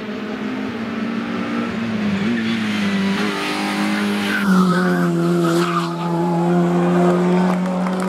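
Hillclimb race car's engine running hard, its pitch shifting up and down through the first half, then held at a steady high note from about halfway through.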